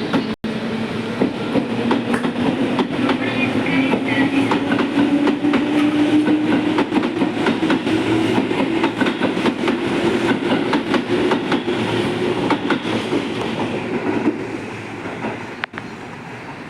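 Tobu 8000-series electric train pulling out of the platform. Its resistor-controlled traction motors hum and rise slowly in pitch as it accelerates, while the wheels clack over the rail joints. The sound drops off a little before the end as the last cars pass.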